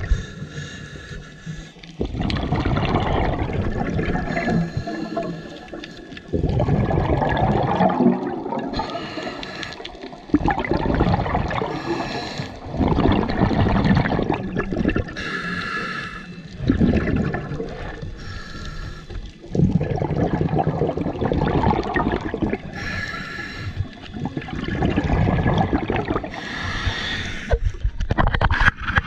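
Scuba diver breathing through a regulator, heard underwater: long bubbling, gurgling exhalations alternate with short hissing inhalations, one breath every few seconds.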